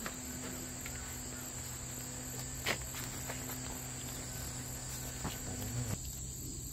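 Steady high-pitched chirring of insects such as crickets, with a few faint ticks: one near the start, one about 2.7 s in and one about 5 s in.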